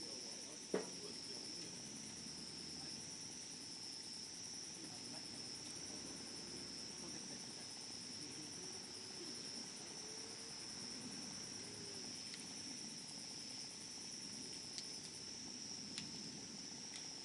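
Wood fire burning with scattered crackles: one sharp pop about a second in, then a few faint ticks near the end. A steady high insect trill, like crickets, continues throughout.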